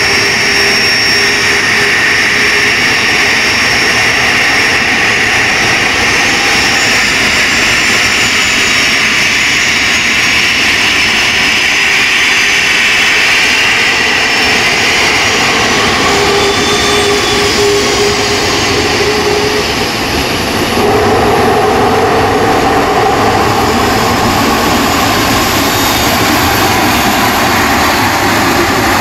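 Boeing 737-300's CFM56-3 turbofan engines running at high power: a loud, steady jet roar with a whining tone. It dips briefly about twenty seconds in, then comes back louder.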